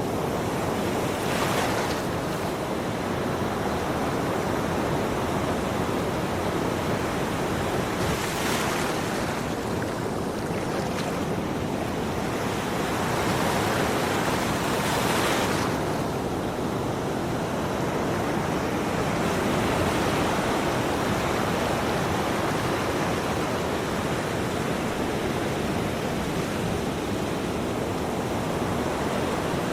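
Ocean surf: a continuous wash of waves, with louder breaks a little over a second in, about eight seconds in, and again around thirteen to sixteen seconds in.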